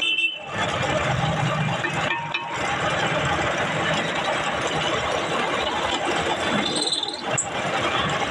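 Drill press running and drilling through leaf-spring steel, a loud steady mechanical noise with short breaks about a quarter-second and two seconds in.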